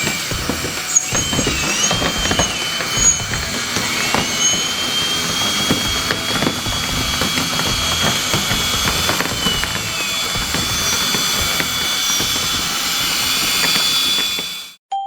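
A 1/14-scale RC hydraulic excavator working, its hydraulic pump whining and gliding up and down in pitch as the arm moves under load, with scattered clicks and clatters. It cuts off sharply near the end.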